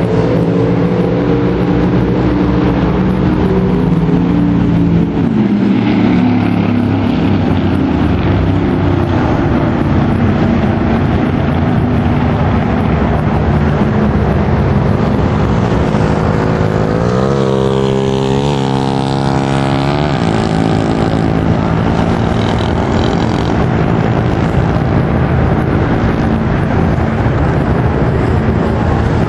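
Small two-stroke KTM mini dirt bike engines running and revving, their pitch shifting up and down with the throttle. A little past halfway one engine's pitch sweeps sharply up and down several times.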